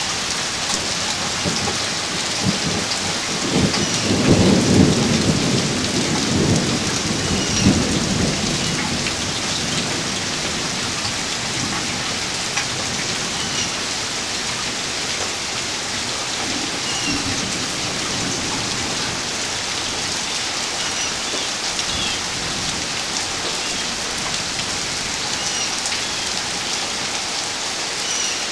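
Steady rain from a thunderstorm, with a rolling rumble of thunder from about two to eight seconds in, loudest around five seconds, then rain alone.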